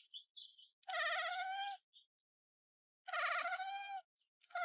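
Cat meowing: drawn-out calls with a wavering pitch, one about a second in and another about three seconds in, with a third starting at the very end.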